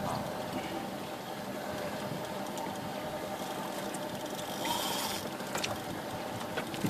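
Steady mechanical whirring with wind noise on the microphone, and a brief hissy swell about five seconds in.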